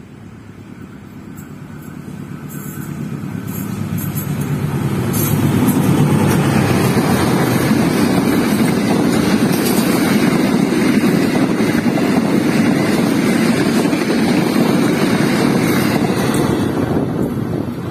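Diesel-hauled passenger train approaching at speed, growing louder over about six seconds, then a steady rumble of its coaches' wheels running past on the rails, easing off slightly near the end.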